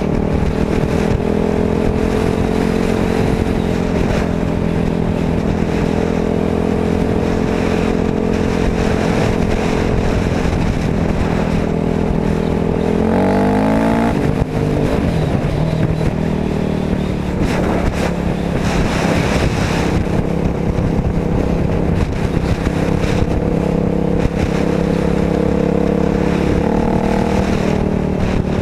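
Motorcycle engine running at a steady cruise. About halfway through, the revs climb sharply and then drop with a gear change, and they shift again near the end.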